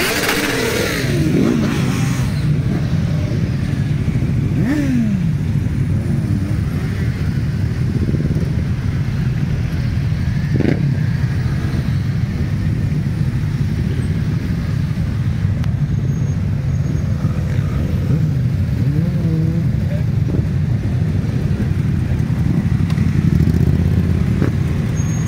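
Many motorcycle engines idling and running at low speed together, a steady deep drone. Now and then single bikes rev briefly, rising and falling in pitch.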